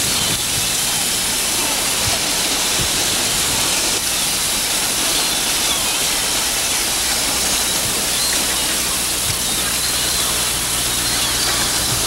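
Steady rushing wash of sea water and surf along a rocky shore, with a faint low hum underneath.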